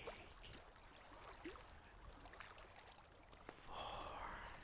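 Near silence with a faint hiss and a few tiny clicks, then a soft breath from a whispering voice about three and a half seconds in.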